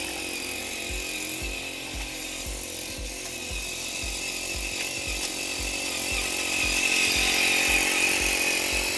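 Small gas engine of a walk-behind core aerator running steadily, with regular low thumps about two a second as the tines punch into the turf. It grows louder in the last few seconds as the machine comes close.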